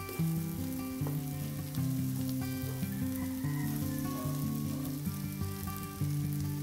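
Bitter melon and egg sizzling in a nonstick wok while a wooden spatula stirs them, with a few light taps and scrapes. A slow background melody of held notes plays over it.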